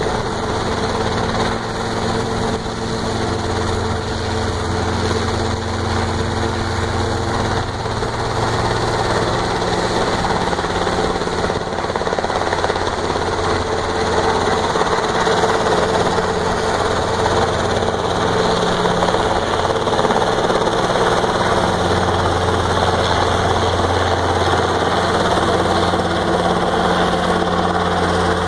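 Robinson R22 Beta II helicopter hovering low and hover-taxiing: the steady running of its four-cylinder piston engine and rotors, a constant hum that shifts slightly in pitch a few times.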